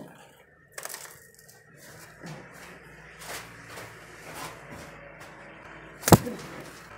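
A brooding pigeon defending its nest: light rustling and scattered soft taps, then about six seconds in a single sharp, loud smack as it lunges and strikes out.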